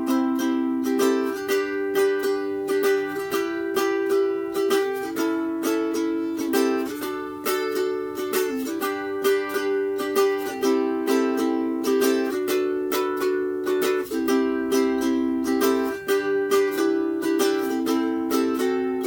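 Enya soprano ukulele with its original Enya carbon strings in high-G tuning, strummed as a sound test: quick, even strokes with the chord changing every second or two. The tone is thought a little quiet.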